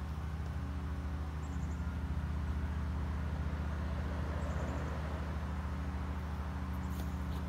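Pickup truck engine idling steadily, an even low hum.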